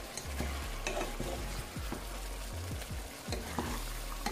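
Seasoned chicken pieces sizzling as they fry in a pan, stirred with a wooden spatula, with scattered small pops and clicks. The chicken is frying down in the juices it has released, with no water added yet.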